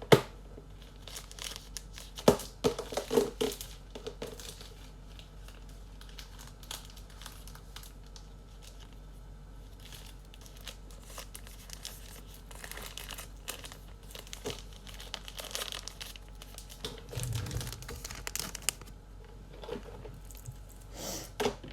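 Packaging being handled for trading cards: intermittent crinkling and rustling, with scattered sharp clicks and a few louder taps.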